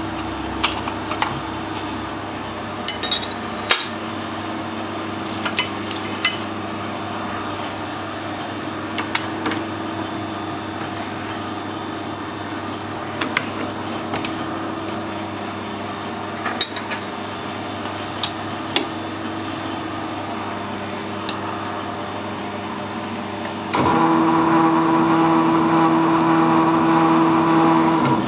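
Scattered light metallic clinks as a die nut on a spanner is worked by hand onto a silver steel stud held in a lathe chuck, over a steady hum. About 24 s in, the lathe starts running under power, a much louder steady whine, turning the stud through the die nut while the spanner holds it to cut the thread.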